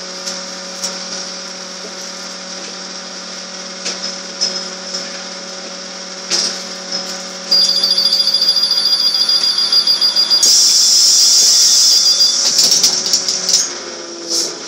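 Škoda 15TR trolleybus standing at a stop with its onboard equipment humming steadily. About halfway a steady high-pitched door warning tone starts, and a loud hiss follows about ten seconds in as the doors close.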